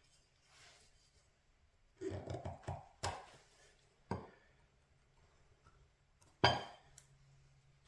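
A small wooden stick scraping and tapping against a maple mallet head at the walnut inlay: a quick run of short scrapes about two seconds in, then three separate sharp taps, the loudest near the end.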